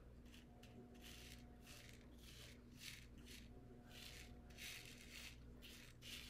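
Loose rhinestones brushed back and forth over a rhinestone template with a foam brush: a faint swishing rattle, about two strokes a second, as the stones are swept into the template's holes.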